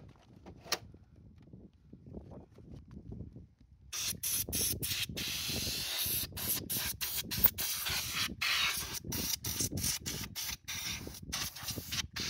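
Compressed gas duster can spraying through its red extension straw to blow dust out of an opened printer. The hiss starts about four seconds in and comes in many short bursts, broken by brief gaps several times a second.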